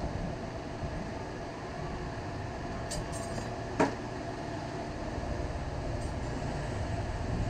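Steady low background rumble, swelling slightly toward the end, with one sharp click a little before four seconds in.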